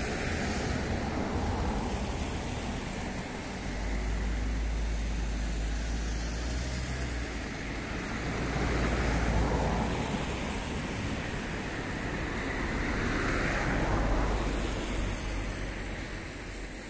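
Road traffic: a steady hiss over a low rumble, swelling louder about nine and again about thirteen seconds in as vehicles pass.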